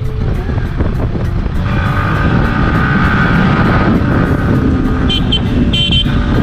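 Motorcycle on the move: steady engine and road noise with heavy low wind rumble on the microphone, and a held tone for a couple of seconds partway through.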